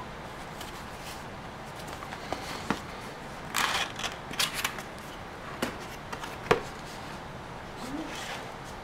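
Cardboard camera box being handled and opened on a wooden table: a few sharp knocks as it is set down and tapped, and a short run of cardboard scraping and rustling as the flap is opened and the inner tray slides out, over a steady hiss.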